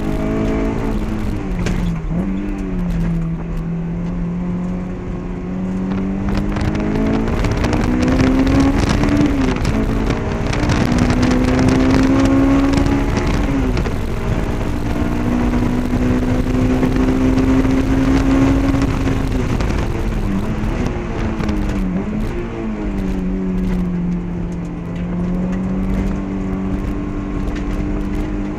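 Honda S2000 AP1's 2.0-litre inline-four, fitted with a catless test pipe, Comptech cat-back exhaust and K&N intake, heard from inside the cabin on a hot lap. Its pitch climbs under acceleration and falls away on lifts and downshifts several times, with the longest steady pulls about a third and two thirds of the way in.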